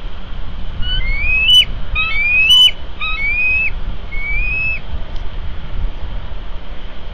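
Bald eagle calling: a series of about five high, thin whistled notes, each rising in pitch and breaking off sharply, the second and third the loudest, over a steady low rumble of wind on the microphone.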